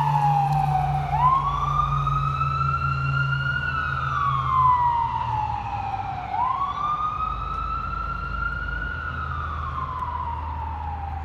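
Fire truck's Whelen electronic siren sounding a slow wail: the pitch climbs quickly, then sinks slowly, about twice, over the low drone of the truck engines. It grows gradually fainter as the apparatus pulls away.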